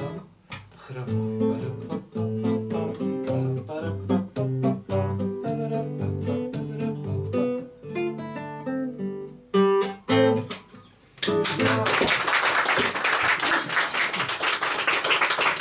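Classical guitar playing the closing instrumental bars of a song, picked notes ending in two final strummed chords about ten seconds in. Then a few people applauding.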